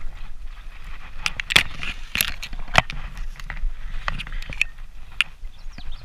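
Dense reeds rustling and crackling against the microphone as someone pushes through them at the water's edge, with several sharp snaps along the way.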